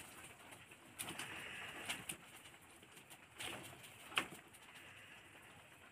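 Bamboo cooking tube being tapped and shaken over a steel plate to empty out cooked chicken: a few scattered knocks and scrapes, the sharpest about four seconds in.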